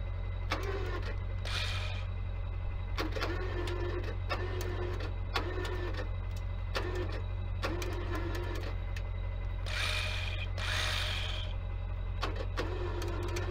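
Tow truck's winch run in short bursts, each a steady motor whine lasting under a second, as the cable is let out to slacken the line, over the truck's engine running. A brief rushing noise comes about ten seconds in.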